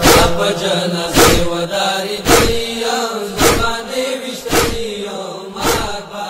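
A voice chanting a Pashto noha lament in long held, wavering notes over a steady matam beat: a sharp slap about once a second, the rhythmic chest-beating of mourning.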